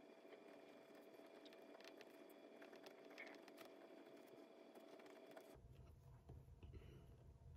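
Faint scratching of a pen writing on planner paper, with small ticks of the pen tip; the writing stops about five seconds in.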